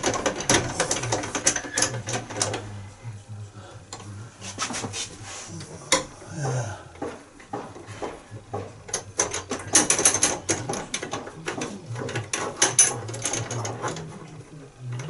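Rapid mechanical clicking and rattling in two main spells, about the first two and a half seconds and again from about nine to fourteen seconds in, with a shorter patch near six seconds and a low hum beneath. It is heard while a pigeon box window winder is being fitted or worked.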